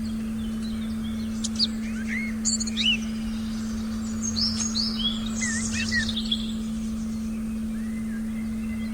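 Forest birds chirping: a burst of quick chirps and short falling and sweeping notes in the middle, over a steady, unchanging low tone.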